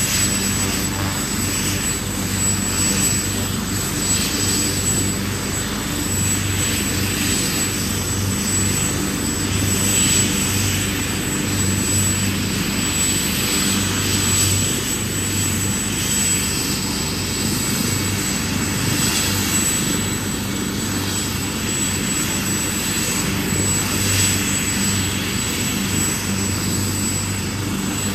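Helicopter running steadily, its engine and rotors making a constant low hum.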